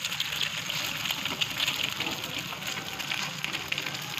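An egg sizzling on a hot flat griddle (tawa): a steady hiss full of fine crackles.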